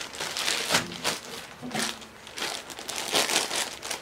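Clear plastic shirt bag crinkling and rustling as it is handled, in a run of irregular crackly rustles.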